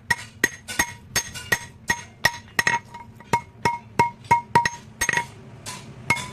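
Blacksmith's hammer striking metal on an anvil in a steady rhythm of about three blows a second, each blow ringing, while a sickle blade is forged. A few blows near the end are softer.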